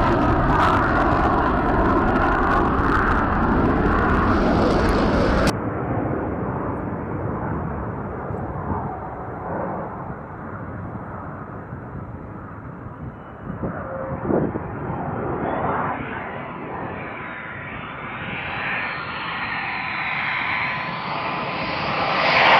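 F-22 Raptor jet engine noise: a loud, steady roar as the jet lifts off, cutting off sharply about five seconds in. A quieter, muffled jet sound follows and swells toward the end with a faint rising whine.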